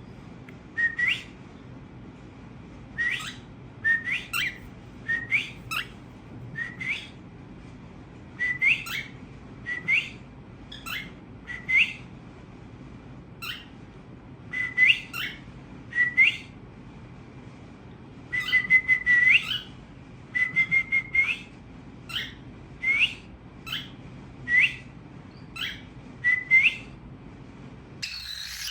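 Cockatiel giving repeated whistled calls: short notes that hold a pitch and then sweep sharply upward, about one every second or two, some with quick clicks before them.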